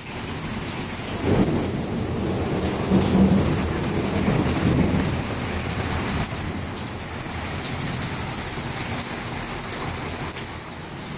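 Heavy rain pouring down and splashing into a flooded patio's standing water, with thunder rumbling in the first half.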